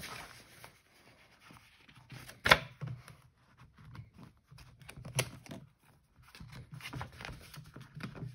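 Hands handling a stiff leather notebook cover and a thick paper notebook: paper and leather rustling and rubbing as the notebook's cover is worked into the cover's pocket. There is a sharp knock about two and a half seconds in and a smaller one about five seconds in.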